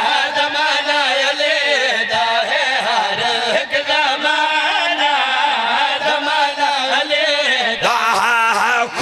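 A man's voice singing a long, wavering lament through a microphone and loudspeakers, in the melodic style of a majlis recitation.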